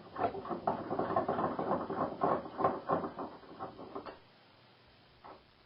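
Rapid, irregular metallic clicking and rattling as a Honda XR650L cam chain tensioner is pressed and worked against a bench vise to compress its spring; it stops about four seconds in.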